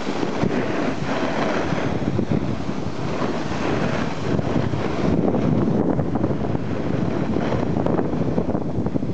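Wind buffeting the microphone of a camera carried downhill, mixed with the rough hiss and scrape of the filmer sliding over packed snow on the slope.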